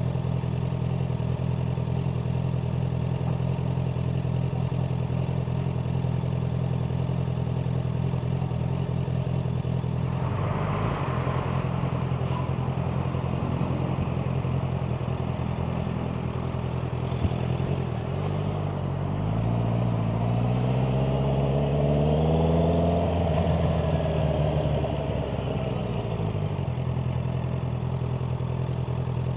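Honda CBR650R's inline-four engine running steadily at low revs, then revving up about two-thirds of the way through with a rising pitch, and easing back down a few seconds later.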